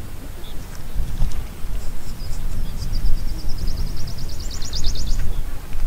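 Low, uneven rumble of wind on the microphone. About three seconds in, a small bird gives a fast trill of high, evenly repeated chirps lasting about two seconds, growing louder toward its end.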